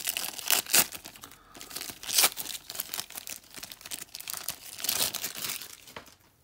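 A foil-lined 1990-91 NBA Hoops Series 2 trading-card pack being torn open by hand. The wrapper crinkles and crackles in a string of uneven rips, the loudest just under a second in and about two seconds in.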